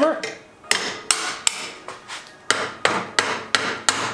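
Repeated metal-on-metal blows from a tool swung as a hammer, knocking temporary supports off a turbocharger's exhaust pipework. There are about nine sharp strikes, a bit more than two a second, each ringing briefly.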